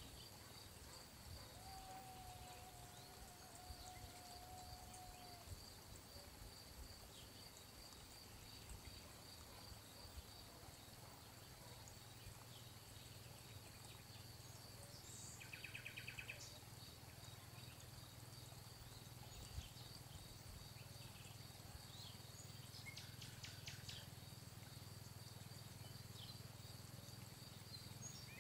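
Faint outdoor garden ambience, close to silence. A steady high-pitched pulsing note runs throughout. There is a brief rapid trill about halfway through, and a few faint chirps near the end.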